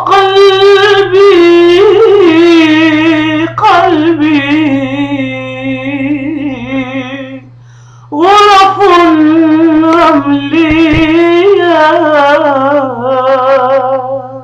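A woman singing two long, drawn-out phrases with a wavering, ornamented pitch, each sinking to a held lower note, with a brief pause between them. A steady low hum runs underneath.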